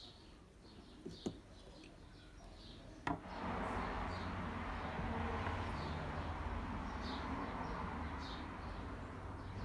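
Small birds chirping faintly, with a few sharp clicks from the screwdriver and screw being worked out of the rusty hand punch. About three seconds in, a steady rushing noise with a low hum starts and carries on, louder than the rest.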